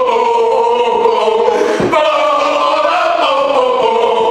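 A group of young men chanting a football song together in long held notes, in two phrases with a short breath between them a little under two seconds in.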